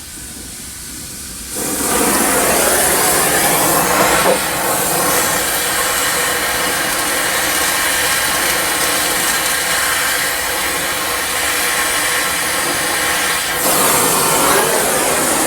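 Handheld torch flame hissing steadily as it heats a seized sway bar end link nut, to soften and burn out the nut's nylon locking insert. The hiss comes on about a second and a half in and holds steady.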